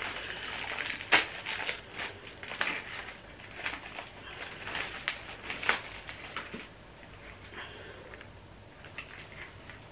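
Plastic sample packaging crinkling and rustling as it is opened by hand and its wrapped contents are pulled out and unfolded. Sharp crackles come in clusters through the first two-thirds, growing sparser and quieter toward the end.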